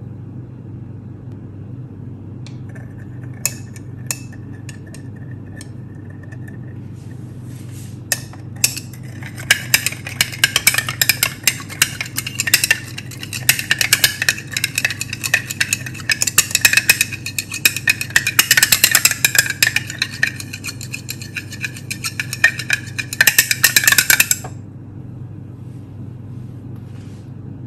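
Glass stirring rod clinking rapidly against the inside of a glass lab beaker while stirring L-arginine powder into water to dissolve it. A few scattered taps at first, then continuous fast clinking for about fifteen seconds that stops suddenly, over a steady low hum.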